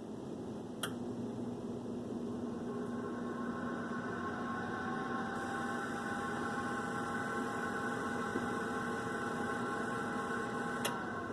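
Whirlpool electric oven's convection fan clicking on about a second in, its motor hum building and rising slightly in pitch as it comes up to speed, then running steadily. Near the end it clicks off and the pitch drops as the fan winds down: the on-off cycling every 10-15 seconds that the owner finds odd for a convection fan.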